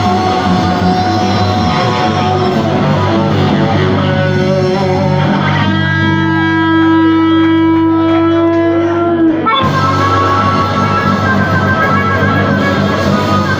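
Live blues-rock band playing, electric guitar to the fore. A long held note sounds from about halfway in and breaks off sharply about two-thirds of the way through, before the full band carries on.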